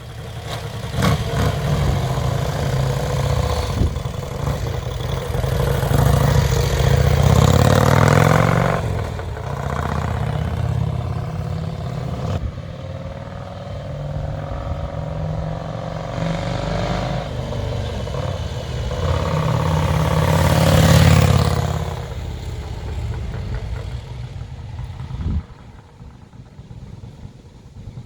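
1951 Vincent Black Shadow's 998 cc V-twin running with its freshly rebuilt top end, revved up and back down twice, then settling to a lower idle. A sharp knock comes near the end.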